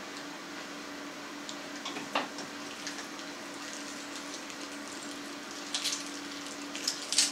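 Hand-cranked vertical sausage stuffer being turned, pressing pork forcemeat through the nozzle into a collagen casing, over a steady low hum, with a few short sharp sounds about two seconds in and near the end.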